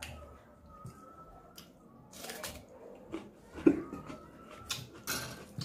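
Close-up eating sounds: chewing and crunching raw onion, with a few short crisp crunches and smacks, the loudest about two, three and a half and five seconds in.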